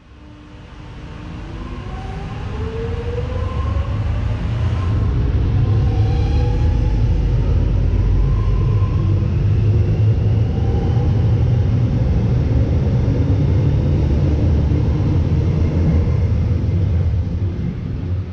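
Electric suburban train running past on the platform road, with a heavy rumble of wheels on rail that builds, holds and fades near the end. A whine climbs in pitch over the first several seconds as it picks up speed.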